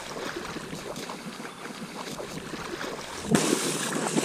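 Water splashing and churning as young ducks land on a pond, a dense rushing spray noise, with a sudden louder burst of splashing about three seconds in.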